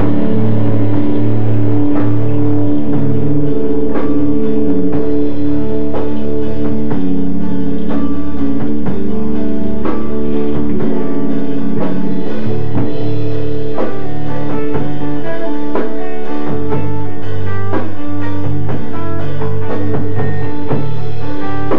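A live rock band playing loudly: electric guitars, bass guitar and drum kit. The lowest bass notes drop out for a few seconds about halfway through, then come back.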